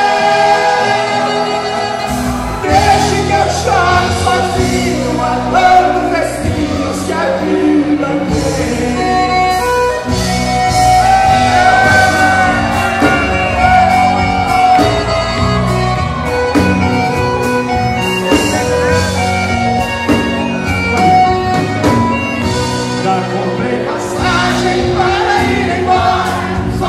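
Live sertanejo (Brazilian country) music: men singing into microphones over accordion, acoustic guitar and drums.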